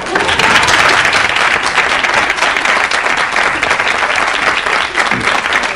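Studio audience applauding: dense clapping that breaks out suddenly and holds steady.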